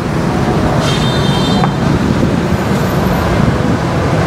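Steady low rumble of nearby road traffic, with a brief faint high squeal about a second in.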